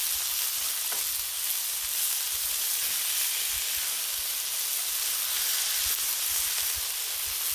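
Slugburger patties of ground beef and breadcrumbs sizzling steadily on a hot Blackstone flat-top griddle.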